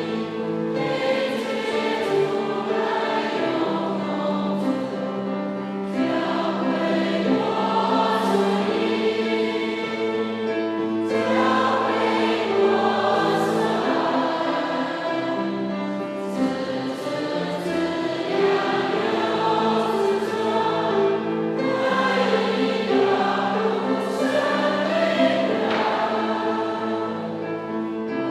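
Choir singing a hymn in sustained, held chords, continuing without a break.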